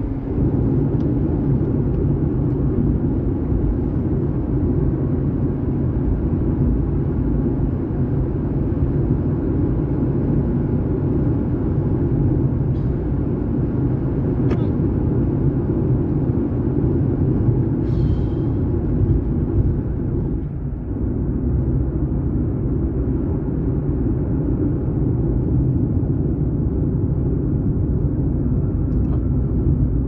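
Steady low rumble of car road and engine noise, heard from inside the cabin.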